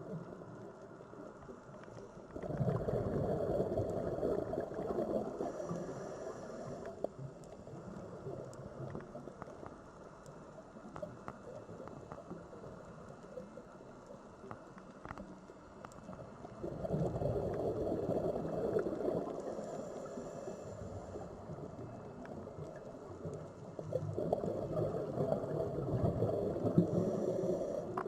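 Sea waves washing in and drawing back, three swells breaking, about 2 s in, again at about 17 s, and once more near the end, with the softer wash of the water between them.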